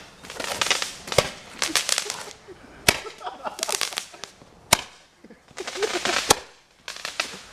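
Handheld Roman candle firework going off: a hissing, crackling fizz broken by four sharp pops, one about every second and a half to two seconds, as each charge fires.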